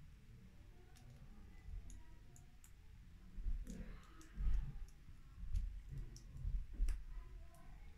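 Small plastic Kinder Surprise toy pieces clicking and tapping as they are handled and fitted together by hand: scattered light clicks, with a few soft low bumps in the second half.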